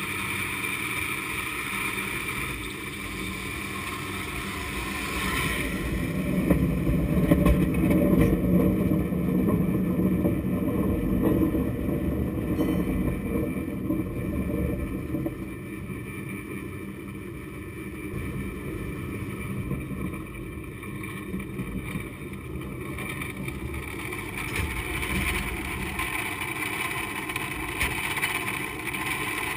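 San Francisco cable car haul cable running through the conduit under the street: a steady mechanical rumble with a constant high whine. The rumble swells louder for several seconds about a fifth of the way in, then settles.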